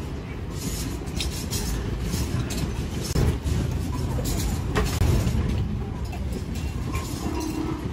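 Steady rumble of street traffic with a few sharp knocks.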